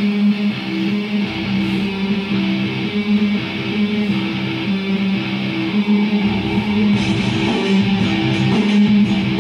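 Guitar-driven music playing, with strummed electric guitar and a bass line.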